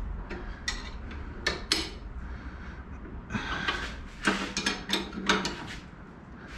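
A wrench clinking and knocking against the bolt and metal bracket of a rod-holder mount as it is tightened, in irregular clusters of sharp metallic clicks.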